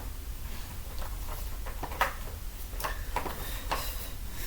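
A few scattered clicks and knocks from a Hoover Powerscrub carpet washer being handled while it is not yet running, the loudest about two seconds in, over a steady low hum.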